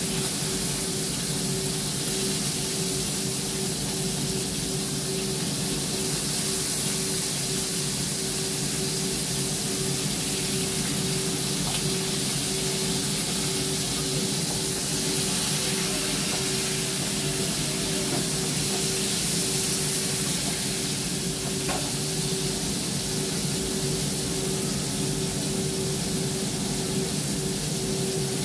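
Kitchen range hood extractor fan running steadily: an even airy hiss with a constant motor hum.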